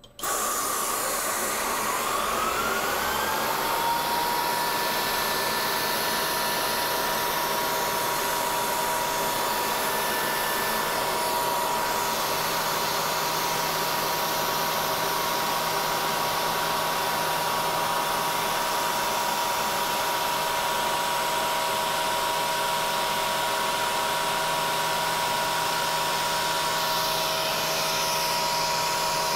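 CNC Bridgeport milling machine's spindle spinning up, its whine rising over the first few seconds and then holding a steady pitch. A loud, steady hiss of the air-mist coolant nozzle runs over it while the end mill cuts thin aluminum sheet, blowing chips away from the cutter.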